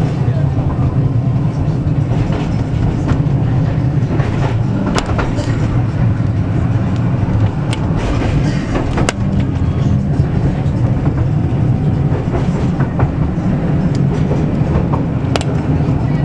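Tram running along the rails, heard from inside the car: a steady low rumble of wheels and running gear, with a few sharp clicks over the track.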